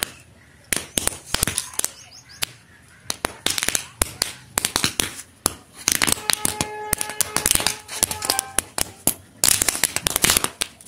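Paper roll caps going off in a rapid, irregular crackle of small pops, thinning in the middle and getting denser again near the end.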